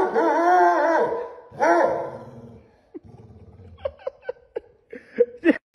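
Adult basset hound baying at puppies: two long, wavering howl-barks in the first two seconds or so. After them come a few faint short ticks and squeaks.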